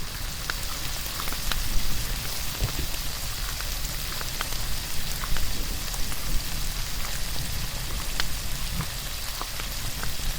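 Dry-aged steak sizzling over a campfire: a steady hiss of frying with scattered sharp pops, over a low rumble.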